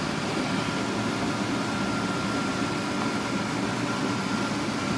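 Air conditioner running: a steady hum with a faint high whine that drops out near the end.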